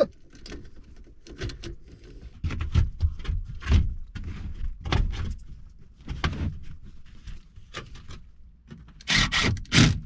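Sheet-metal access panel of a Trane air handler being fitted back into place: scattered knocks, scrapes and rubbing of metal on metal. Near the end a cordless drill/driver runs briefly, driving the panel screws.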